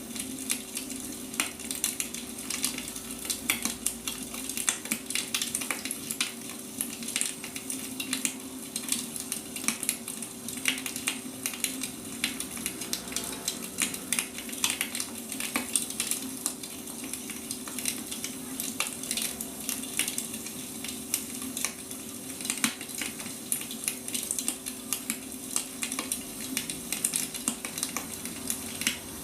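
Wood fire burning, with a steady stream of irregular pops and crackles from the burning firewood over a soft hiss. A faint steady low hum runs underneath.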